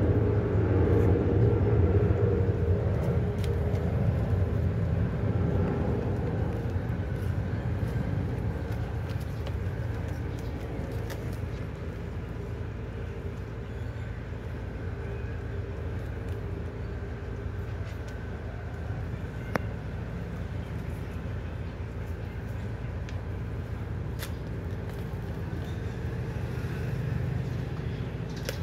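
A steady low motor-vehicle engine rumble, loudest at the start and slowly easing off over the first ten seconds or so, over faint scattered clicks and smacks of puppies and their mother eating from a plastic bowl.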